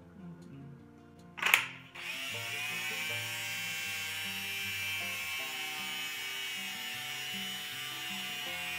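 An old DeWalt NiCad cordless drill's motor running steadily with nothing in the chuck, load-testing its battery. It starts about two seconds in, just after a loud click, and background music plays underneath.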